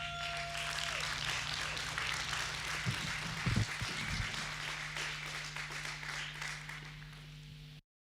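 Audience applauding and clapping at the end of a song, slowly fading and then cutting off abruptly near the end. In the first second a last held guitar note rings out, and a low steady amplifier hum runs underneath.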